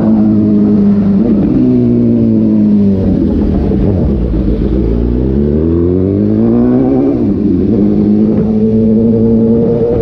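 Suzuki GSX-S750's inline-four engine through an SC-Project slip-on exhaust with the dB killer removed, ridden on the road: the revs drop off over a few seconds, climb again with the throttle, then hold steady.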